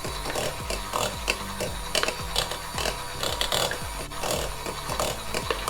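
Electric kitchen mixer beating hazelnut cake batter, its motor running steadily while the beaters scrape and knock against the bowl.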